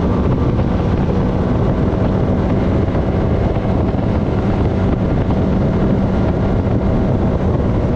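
Honda FourTrax Foreman ATV's engine running steadily at cruising speed, with wind buffeting the microphone.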